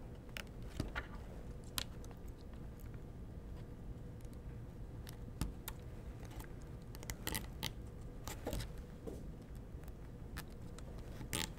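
Faint, irregular clicking and tapping of small zip ties being pulled snug by hand around linear bearings, with metal bearings knocking against the bed frame, sometimes a few clicks in quick succession.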